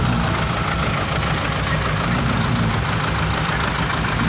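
A vehicle engine running steadily, with a low, even drone.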